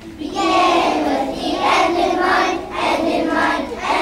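A class of kindergarten children singing a song together in unison, starting about a third of a second in.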